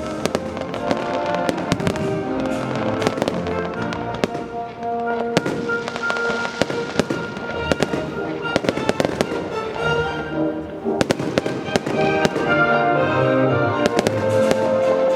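Fireworks display: many sharp bangs and crackles of bursting shells, set against music with sustained notes that runs alongside the show.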